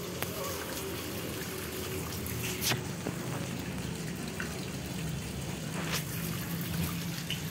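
Small garden fountain splashing steadily into its pond, with a couple of faint ticks.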